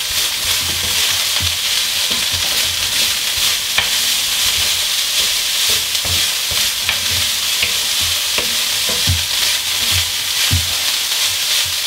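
Cooked rice sizzling steadily in a hot wok while a wooden spoon stirs and scrapes through it, with irregular soft knocks of the spoon against the pan.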